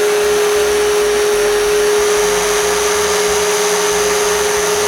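Electric sander running steadily on the small wooden game pieces, a constant whine over a wide hiss.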